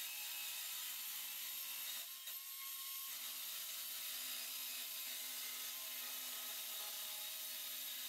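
Makita HS301D cordless circular saw with an 85 mm blade running and cutting steadily lengthwise through plywood, a continuous cutting hiss that dips briefly about two seconds in.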